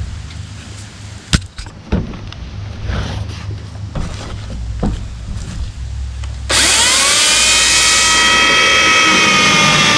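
Kobalt 18-inch corded electric chainsaw. A few knocks are heard as it is handled; then, about two-thirds of the way in, the motor switches on with a quick rising whine. It then runs at a steady full-speed whine with the chain spinning free, not yet in the wood.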